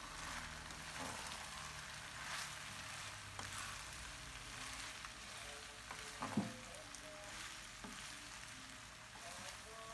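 Vegetables and glass noodles sizzling in a frying pan while a utensil stirs and tosses them, with scraping strokes. One sharper knock against the pan comes a little past the middle.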